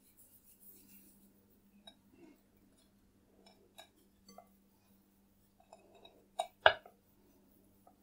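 Faint handling sounds of dough balls and a wooden rolling pin on a round rolling board: a few small clicks, then two sharp knocks close together near the end as the rolling pin meets the board. A faint steady hum runs underneath.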